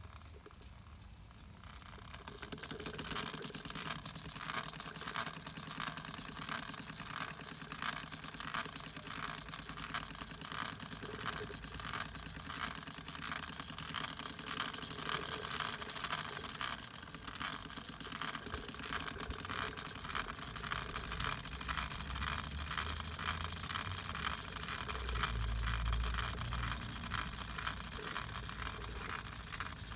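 Wilesco live-steam model traction engine running, starting about two and a half seconds in with a rapid, even mechanical clatter of its steam engine. A brief low bump comes near the end.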